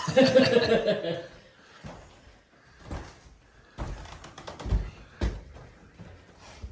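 A voice in the first second, then a few dull thumps and knocks.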